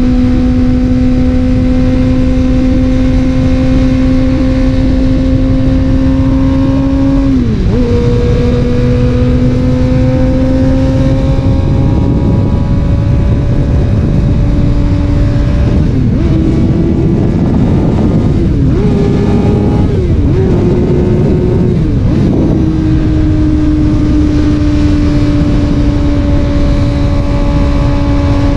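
Suzuki GSX-R600's inline-four engine running through an M4 slip-on exhaust under way, its note climbing slowly. It drops sharply about seven seconds in with a gear change. From about twelve to twenty-three seconds the note dips and steps up and down several times under a heavy rushing noise, then settles steady again.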